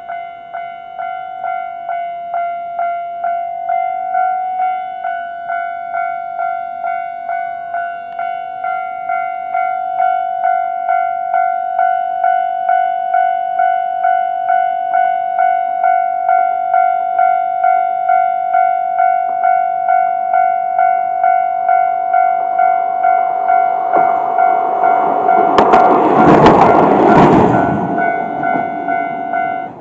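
Japanese level crossing's electronic warning bell ringing in a steady ding-ding rhythm, about one and a half strokes a second, growing slowly louder. Near the end a Nagaragawa Railway diesel railcar runs through the crossing, its rumble and wheel clatter swelling over the bell. The bell then cuts off suddenly as the warning ends.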